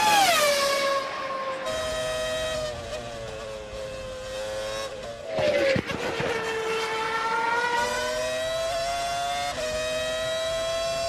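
Honda V10 engine of a BAR Formula One car running at high revs. The car passes by with a sharp drop in pitch at the start and again about six seconds in. Then, heard from on board, the revs climb steadily, with an upshift near the end and the climb starting again.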